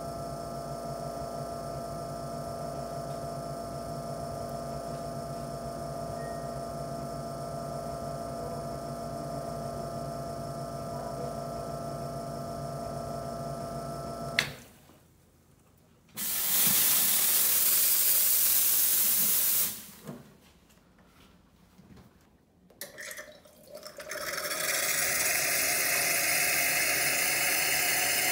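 Rancilio S27 espresso machine's pump humming steadily while the shots pour, then cutting off with a click about halfway through. A loud rushing hiss follows for about three seconds. Near the end, hot water runs into a steel pitcher, its pitch slowly rising as the pitcher fills.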